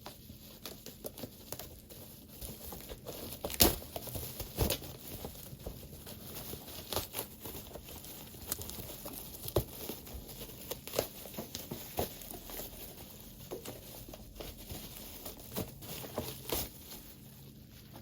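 Packaging being handled and opened by hand: irregular crinkling, rustling and tearing with scattered small clicks, the sharpest snap about three and a half seconds in.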